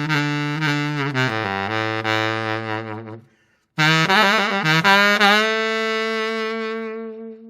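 E-flat baritone saxophone playing a melody: a phrase ends on a long low note about three seconds in, and after a short pause a closing phrase of quick notes settles into a long held note that fades away near the end.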